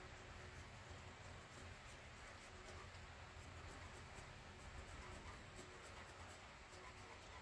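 Faint scratching of a hand scraper shaving the high spots off a freshly poured babbitt bearing in a Franklin connecting rod, a stage in scraping the bearing in to fit the crank journal.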